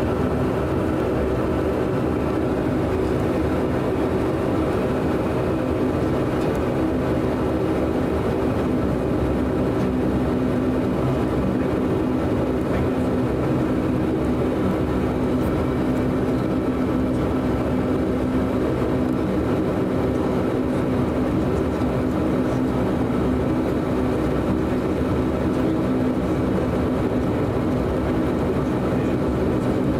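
Inside-the-cabin sound of a DHC-8 Q400's Pratt & Whitney PW150A turboprop engines and propellers running at taxi power: a steady drone with several held tones over a low rumble.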